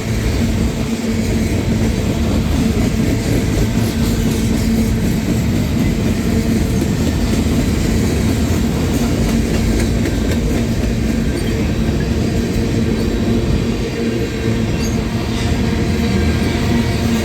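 Union Pacific freight train cars rolling past steadily, wheels clacking over rail joints, with a steady low drone held under the wheel noise.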